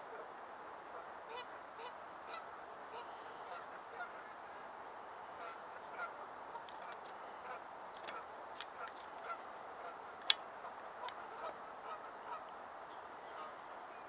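A steady chorus of many distant waterfowl calling, with scattered short ticks and chirps over it. One sharp tick about ten seconds in is the loudest sound.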